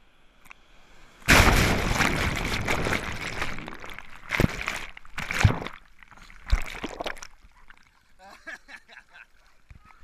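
Breaking surf washing over a camera at the waterline. A loud rush of foaming water starts about a second in, then three sharp splashes hit the camera before the wash dies away.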